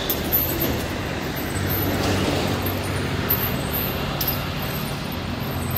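Road traffic passing: vehicle engines running and tyre noise, with a steady low engine hum that grows stronger about a second and a half in.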